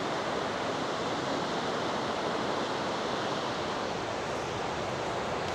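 River water rushing over rapids: a steady, even rush with no breaks.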